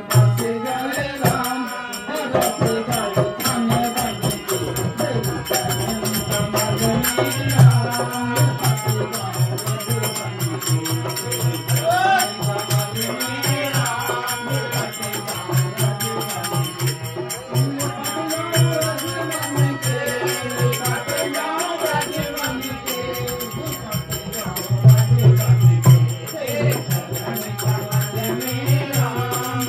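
Hindu devotional bhajan (a Ram bhajan) sung live by a male voice through a microphone, accompanied by harmonium and a hand drum, with a steady rhythmic jingling percussion beat.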